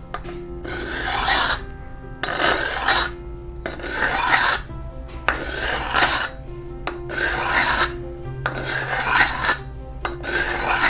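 Steel kitchen knife edge scraped edge-first across an Atoma diamond plate in about seven strokes, one every second and a half or so. The edge is being deliberately dulled ("killed") before sharpening.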